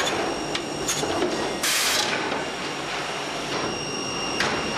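Woodworking CNC machine running with a steady whine, with a few sharp knocks and a short half-second hiss about one and a half seconds in.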